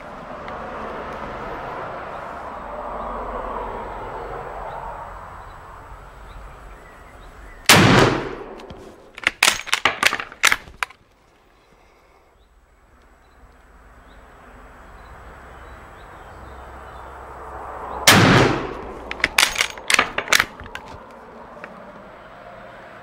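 Two shots from a Früwirth M1872 carbine firing 11.15x36R, about ten seconds apart. A second or so after each shot comes a quick run of metallic clacks as the bolt is worked hard to eject the case and feed the next round.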